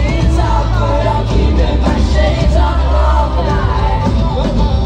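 Live pop-rock band playing loudly: electric guitar, drums and a strong bass under a male lead vocal.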